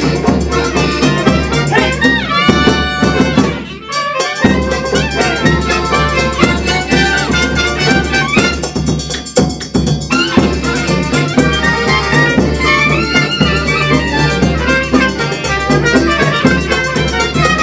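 Chindon band playing live: wind instruments over drums and percussion, with a brief dip about four seconds in.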